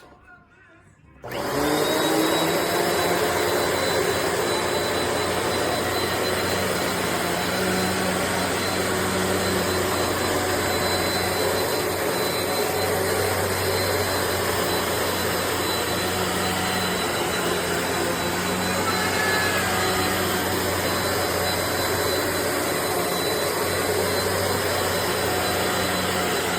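Upright vacuum cleaner switched on about a second in. Its motor spins up with a briefly rising tone, then runs steadily with a high whine.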